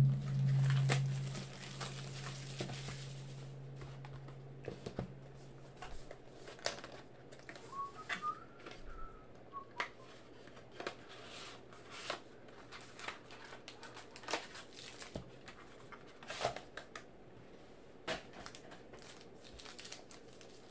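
A sealed trading-card box and its wrapper being opened by hand: irregular crinkling, tearing and rustling of plastic and cardboard, with small taps and clicks. A low held note from intro music fades out over the first few seconds.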